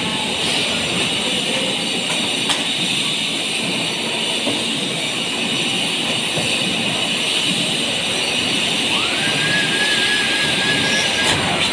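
Steady hissing machinery din. About three-quarters of the way in, a small power tool's motor spins up, runs at a steady pitch for about two seconds, then winds down near the end. There are a couple of sharp clicks.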